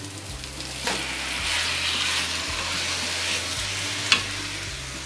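Cubes of raw beef sizzling as they go into a hot enamel pan of fried spice paste and are stirred with a spatula, the sizzle building about a second in. Two short knocks against the pan, one about a second in and one near the end.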